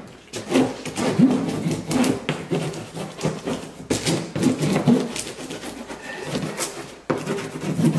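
Packing tape being pulled off a handheld tape gun and pressed onto a cardboard box, in several long rasping, crackling strokes.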